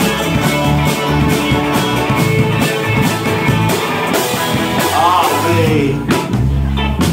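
Live roots band playing an upbeat number on acoustic guitar, fiddle, a second guitar and a drum kit, with a steady drum beat.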